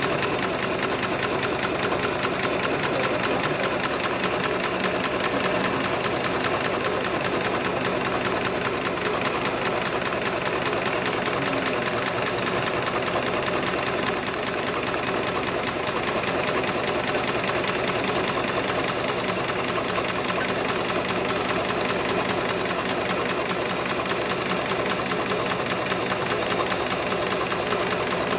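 HIGHTEX 7273PLK automatic programmable pattern sewing machine stitching heavy belt material, its needle running in a fast, even rhythm as the work clamp carries the belt through the programmed stitch pattern. A steady high-pitched whine runs over the stitching.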